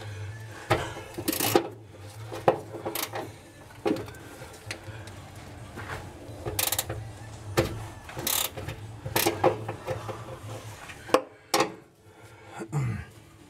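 Irregular metallic clinks and scrapes of a wrench being worked on a rusty inner-fender bolt, over a steady low hum that stops near the end.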